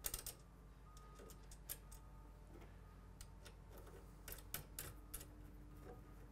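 Faint, irregular light clicks and taps of a small nut and washers being picked up from a wooden tabletop and fitted back onto a mower's handlebar bolt.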